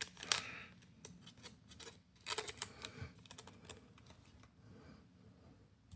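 Light, scattered taps and clicks of Pokémon trading cards being handled and set down on a table, busiest in the first three seconds and thinning out after that.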